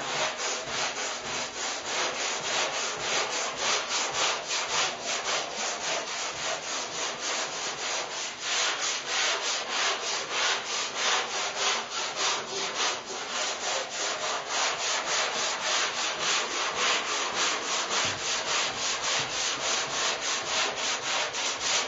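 Gerry's Curvecaster long flexible sanding board block-sanding body filler on a car hood by hand: sandpaper rasping in steady back-and-forth strokes, about three a second.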